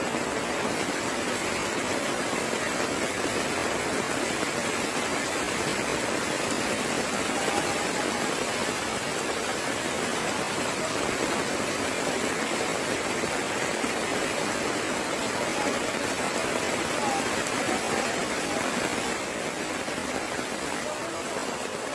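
Steady rushing noise of water, even and unbroken, easing slightly near the end.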